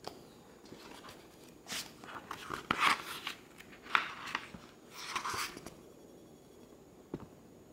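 Pages of a softcover book being flipped by hand: several bursts of papery rustling over a few seconds, with a few light knocks.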